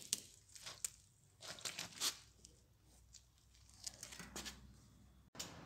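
A lemon crushed under a bicycle's knobby tyre on concrete: its peel crackles, squishes and splits in a string of short sharp crackles, two clusters of them about two seconds apart.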